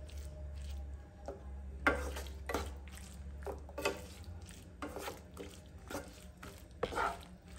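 Spatula stirring and scraping thick capsicum masala in a nonstick pan, with about one or two scraping strokes a second, as curd is mixed in with the heat off.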